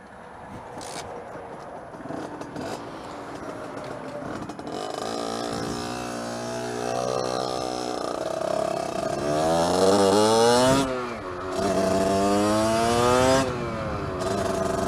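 Beta RR supermotard motorcycle, running an aftermarket exhaust, riding and accelerating. The first seconds are mostly wind and road noise. Then the engine note climbs with the revs, drops sharply at a gear change about eleven seconds in, climbs again and drops once more near the end.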